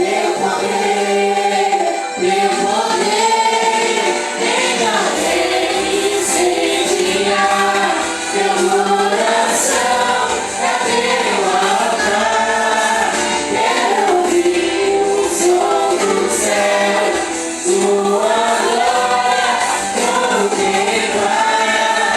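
A worship group singing a Portuguese gospel song in chorus with band accompaniment.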